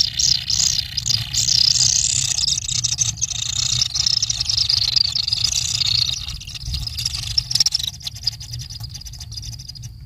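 Kingfisher nestlings begging in their earth burrow: a shrill, dense chorus of rapid high-pitched calls as a parent feeds them a fish. The calls thin out and fade over the last couple of seconds, over a steady low rumble.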